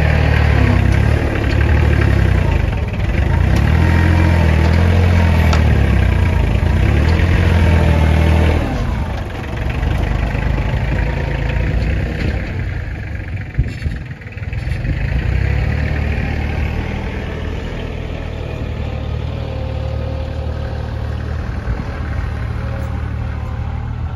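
Tractor engine working as its front loader bucket digs into a manure pile: loud and wavering in pitch for the first eight or so seconds. It then falls quieter for several seconds, with a couple of knocks, and settles into a steady run from about fifteen seconds in.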